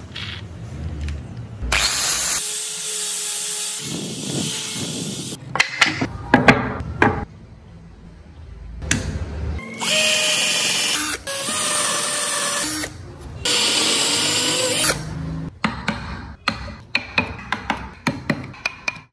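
Electric power tool working wood, run in four bursts of a few seconds each with a steady motor whine, with sharp knocks between the bursts and a quick series of sharp taps over the last few seconds.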